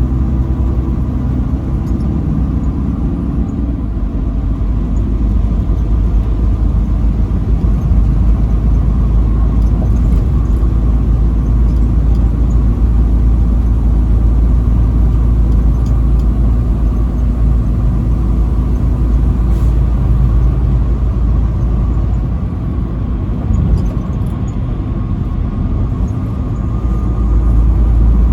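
Truck driving on the highway: a steady low rumble of engine and road noise, with the engine's hum clearer in the first few seconds.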